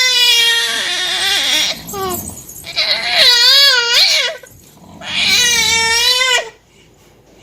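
Five-month-old baby making three long, high-pitched vocal noises, each drawn out for one to two seconds with a wavering pitch, the last one stopping about a second before the end.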